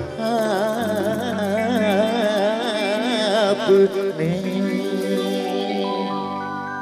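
The closing bars of a live Hindi film song performance: a long held note with wide vibrato over quick light percussion strokes, then from about four seconds in a steady sustained chord that slowly fades.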